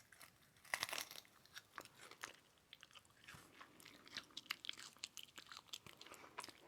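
A person biting and chewing a hard, crunchy snack close to the microphone. There is a crisp bite about a second in, then a string of small, faint crunches as it is chewed.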